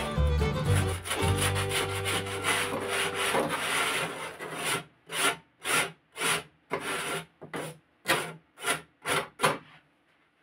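Hand sanding of a plywood panel: sandpaper rubbed back and forth over the wood. At first the rubbing is continuous. After about five seconds it becomes about ten separate strokes, roughly two a second, which stop just before the end.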